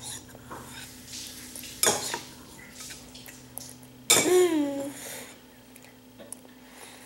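A spoon clicking and scraping against a bowl as a toddler scoops food, with a short vocal sound from the child, falling in pitch, about four seconds in, the loudest thing here. A faint steady hum runs underneath.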